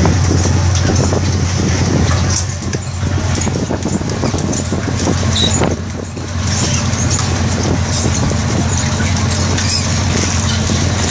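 Steady low drone of a squid-jigging vessel's machinery, with busy clicking and rattling from the automatic jigging reels turning.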